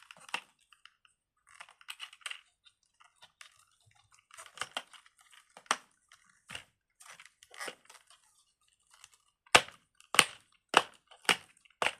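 A fidget toy being handled and pressed: scattered soft clicks and crackles, then from about halfway through the last third a run of sharper, louder snaps, roughly two a second.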